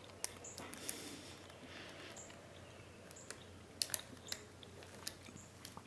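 Lock pick and tension wrench working in a Medeco Duracam padlock cylinder: faint, irregular small clicks and scrapes as the pins are lifted and rotated against the sidebar, with a little cluster of clicks about four seconds in.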